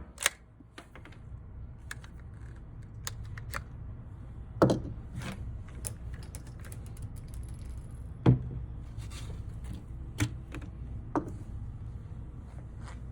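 Browning T-Bolt .22 LR rifle: several sharp cracks a few seconds apart, two of them clearly the loudest, with lighter mechanical clicks between them, as from the bolt being worked.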